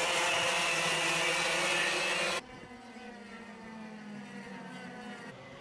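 Several 125cc two-stroke kart engines running together at part throttle. About two and a half seconds in, the sound drops suddenly to a quieter engine hum.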